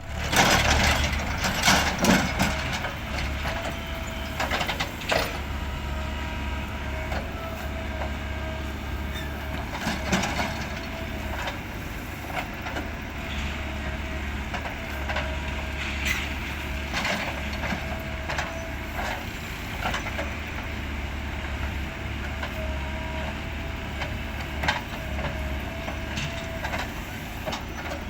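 Caterpillar 424B2 backhoe loader's diesel engine running under varying load, with a steady whine and repeated clanks and knocks from the bucket as it loads a tractor trailer. The clanks are loudest and most frequent in the first few seconds.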